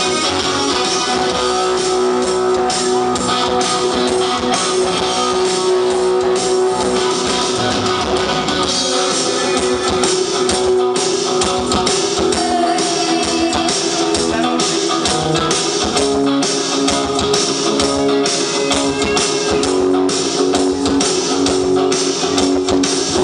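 Loud rock and roll music with strummed guitar and a steady beat, played over a DJ's party sound system.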